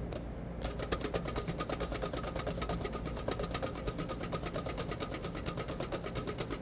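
Wire whisk beating zabaglione custard in a stainless-steel bowl over a double boiler: a rapid, even run of metal clicks and scrapes as the wires strike the bowl, starting about half a second in, over a steady low hum. The egg-yolk custard is thickening toward the ribbon stage.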